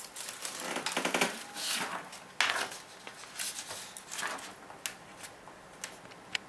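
A sheet of paper rustling as it is grabbed and laid on a desk, then a pen scratching on it as a number is written down, with a few light taps near the end.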